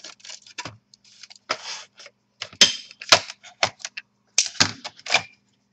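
A string of irregular sharp plastic clicks and snaps from a Toshiba Satellite C850 laptop's plastic casing as it is handled and its clips come loose. The loudest snaps come in the middle and again near the end.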